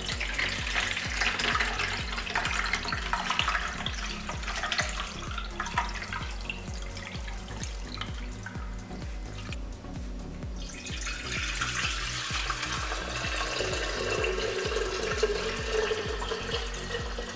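Lemonade poured in a steady stream from a pot through a fine mesh strainer, splashing into the bowl beneath. After a brief break about ten seconds in, lemonade is poured into a glass pitcher, with a ringing note showing as it fills.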